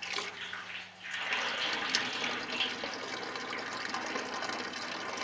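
Water pouring from a hose into a part-filled metal barrel, fed by a Vodoley submersible pump. It is a steady splashing rush that grows louder about a second in.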